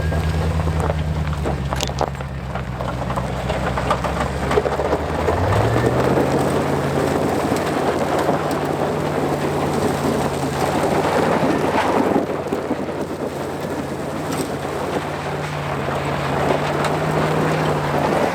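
Off-road vehicle engine running steadily under way, with a heavy rush of wind and tyre noise; the engine note shifts up about five seconds in.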